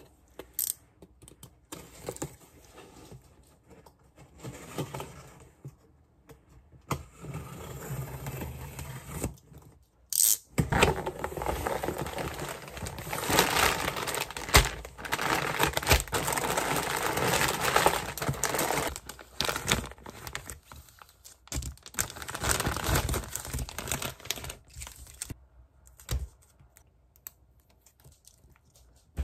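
Packing tape on a cardboard box slit with a box cutter and the flaps handled, with scattered rustles and clicks; then plastic bags of jelly pouches crinkling and rustling as they are pulled out and handled, densest and loudest from about ten seconds in until a few seconds before the end.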